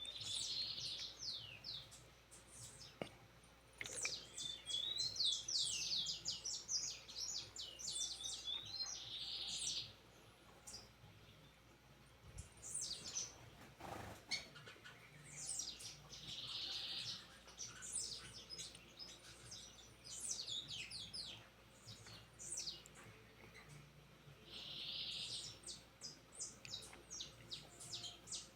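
A songbird singing long, fast phrases of high, quickly repeated notes that slide downward, some mixed with a buzzy trill, in bouts of a few seconds separated by short pauses.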